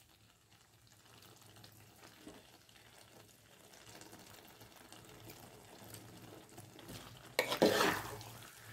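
A metal spoon stirring and scraping through thick chicken masala in a metal pot, loudest for about a second near the end. Before that there is only a faint low hiss.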